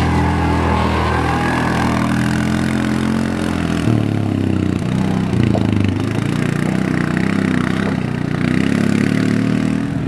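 Side-by-side utility vehicle's engine running at low revs as it crawls past and climbs away up a rocky dirt trail, the pitch shifting about four seconds in.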